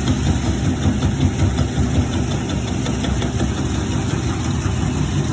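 Maytag washing machine running with a loud, steady low rumble and a fast irregular flutter, the unwanted noise the owner is showing.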